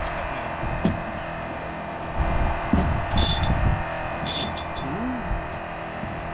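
Fishing boat's engine humming steadily, with a few short, high metallic clinks about three seconds and four and a half seconds in.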